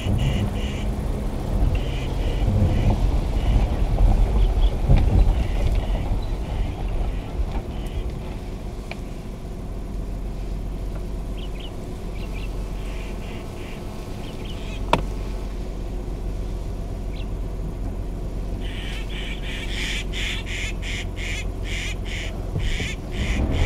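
Birds calling now and then over a steady low rumble, then a run of rapid, repeated calls near the end. A single sharp click comes about two-thirds of the way through.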